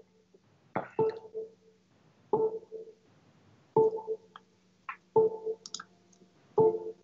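Sparse music from a music video's soundtrack: a single struck note repeated evenly about every second and a half, five times, each ringing briefly and dying away.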